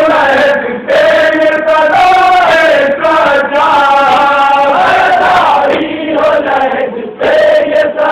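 Men chanting a noha, a Shia mourning lament, in chorus. The singing is loud, in long held phrases with brief breaks between them, one about a second in and a longer one near the end.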